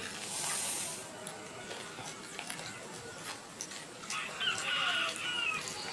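Crispy pata skin crackling and tearing as it is pulled apart by hand, a rustling burst in the first second and scattered small crackles after. About four seconds in, a chicken calls once for just over a second.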